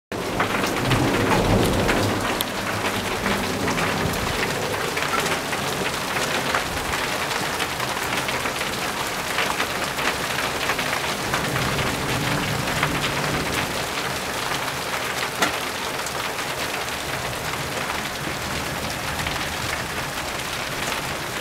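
Steady rain of a thunderstorm falling, with many sharp drops hitting nearby surfaces. A low rumble of thunder comes in the first couple of seconds.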